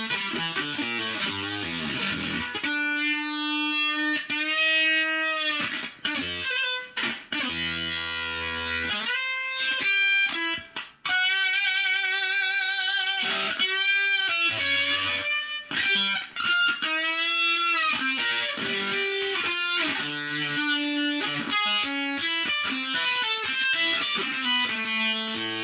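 Electric guitar played through effects pedals, a Behringer octave divider and a fuzz, with held notes that waver in pitch, slides, and a few short breaks between phrases.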